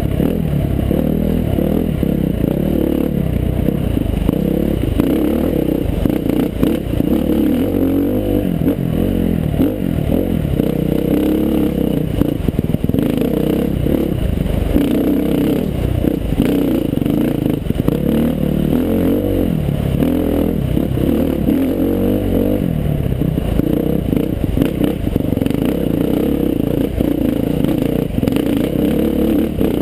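Dirt bike engine running and revving up and down over rough, rocky trail, with frequent knocks and clatter from the bike.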